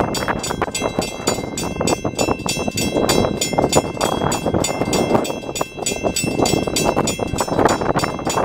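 Railroad crossing signal bell ringing with rapid, evenly spaced strikes as the crossing activates and the gate arms come down, with wind gusting on the microphone.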